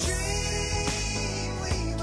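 Music: a full, held chord with deep bass.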